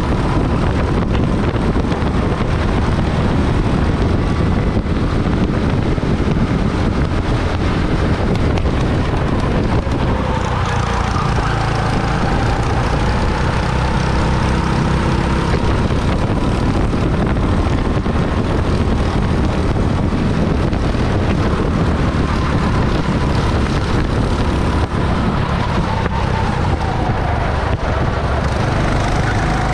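Rental go-kart running at racing speed, heard from on board, with a steady loud rumble and a whine that drops and climbs again a couple of times as the kart slows and speeds up.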